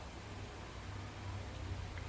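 Faint steady background hiss with a low hum: room tone, with no distinct slicing or cranking sounds.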